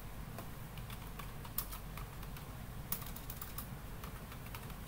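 Computer keyboard keystrokes, a few scattered taps and then a quick run of them about three seconds in, as a password is typed, over a faint low hum.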